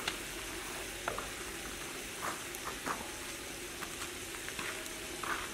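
Chicken pieces and chilli powder sizzling in an aluminium pot over a wood fire: a steady hiss with scattered small pops.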